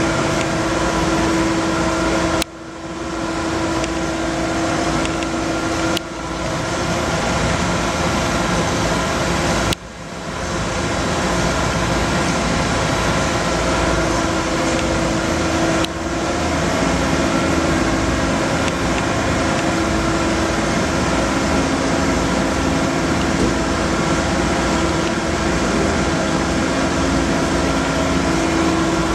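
Steady hum of industrial machinery running, a motor or pump drone with several held tones over a wash of noise. It drops out sharply and comes back four times.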